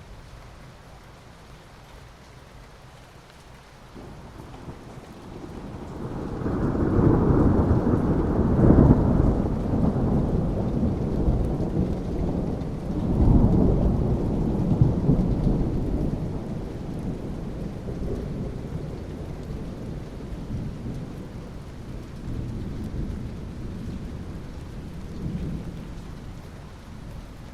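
Steady rain with a long, deep rumble of thunder that builds about a quarter of the way in, peaks twice, and slowly fades away.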